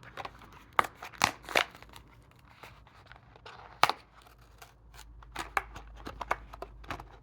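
A Hot Wheels blister pack being opened: the plastic blister and cardboard card crackle, snap and tear in a series of sharp clicks and crinkles. The loudest snaps come a few times in the first two seconds and once about four seconds in.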